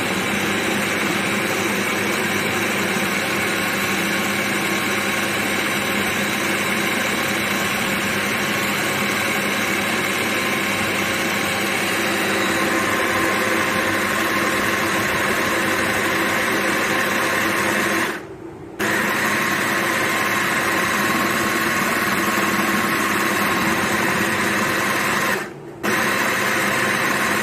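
Moulinex hand-blender motor on a chopper bowl, running steadily as its blade chops raw mutton mince with bread, onion and spices into kofta mixture. The motor stops briefly twice in the last third and starts again.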